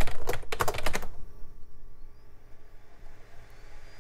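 Quick keystrokes on a computer keyboard for about the first second as the shutdown command is typed, then a faint steady hum.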